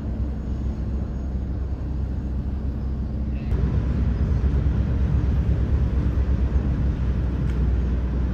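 Low, steady engine rumble that grows louder and rougher about three and a half seconds in.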